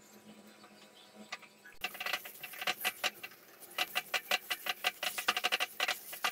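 Silicone spatula stirring and scraping a thick gram-flour and coconut burfi mixture around a nonstick frying pan, in quick, irregular strokes, several a second, that start about two seconds in. The mixture is being cooked down until it stops sticking to the pan.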